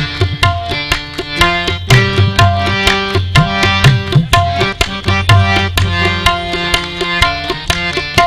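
Instrumental qawwali music: tabla playing quick, regular strokes under a melodic line of held and stepping notes.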